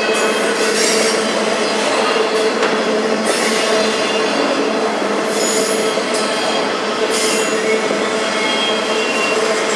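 Double-stack intermodal freight train passing at speed: a loud, steady rolling noise of steel wheels on rail, with steady high squealing tones from the wheels.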